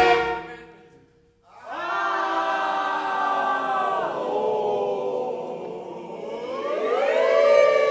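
Ensemble music breaks off, and after about a second of near silence the audience and musicians sing together as a many-voiced choir, following a graphic score. A held 'aaaa' slides down about four seconds in to a steady 'oooo', then glides upward near the end toward 'iiii'.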